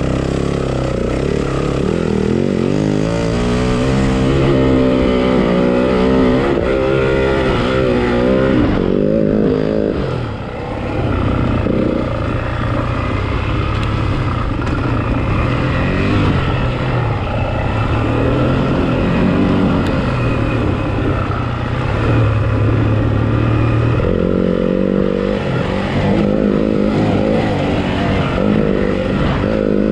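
Yamaha WR-F single-cylinder four-stroke enduro motorcycle engine ridden hard off-road, revving up and dropping back again and again as the rider works the throttle and gears. The throttle is briefly closed about ten seconds in.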